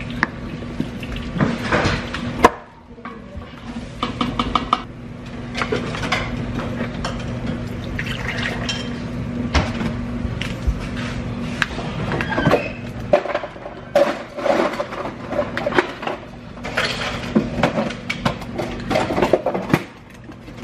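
Kitchen handling sounds from a glass flour jar and a glass measuring cup: scattered clinks and knocks over a steady low hum.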